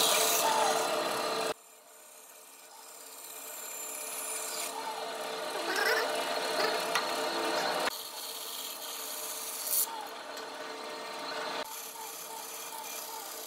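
Bandsaw blade cutting a curved line through a thick wooden block. The loud cutting noise stops abruptly about a second and a half in and gives way to much quieter saw noise, which shifts abruptly twice more.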